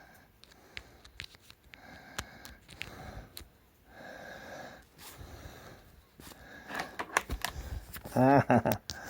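A man breathing out heavily and sighing while small clicks and taps come from fiddly handling of multimeter probes and an adapter plug, with a short voiced grunt near the end.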